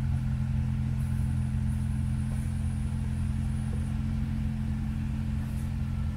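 Jeep Gladiator's engine running steadily at low revs, a constant low hum that does not rise or fall, as the truck crawls slowly up a rock ledge.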